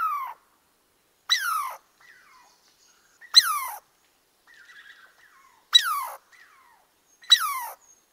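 Squirrel calls: five short, squeaky cries, each sliding down in pitch, repeated every one and a half to two seconds.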